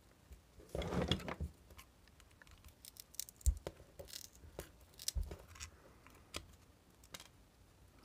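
Pliers crunching and nipping at a crushed thermal fuse's casing and filler compound: a short spell of crunching about a second in, then scattered small clicks and snaps.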